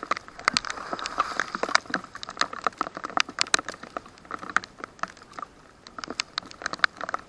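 Rain falling, with many separate drops tapping irregularly and sharply close to the microphone.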